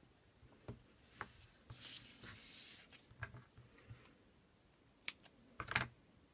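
Soft rustling and small clicks as hands handle cardstock and adhesive tape, then small craft scissors snipping a strip of tape, with two sharp snips near the end that are the loudest sounds.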